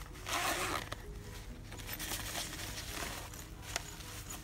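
Zipper on a padded fabric pouch pulled open in one quick stroke about half a second in, followed by rustling and handling of the fabric as the pocket is spread open.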